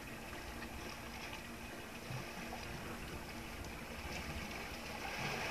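Open-sea ambience on a small outrigger boat: steady wind and water washing against the hull, with a faint steady low hum underneath.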